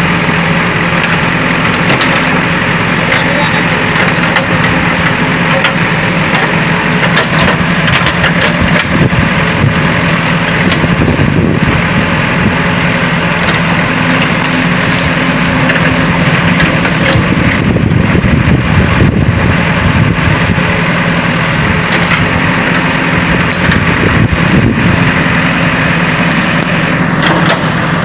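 Heavy earthmoving machinery's diesel engines running steadily and loudly under work, with a constant low engine hum.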